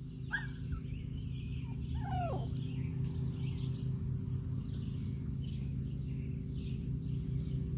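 Puppies whining: two short high calls, the first just after the start and the second about two seconds in, that rise and then fall away. A steady low hum and faint bird chirps run underneath.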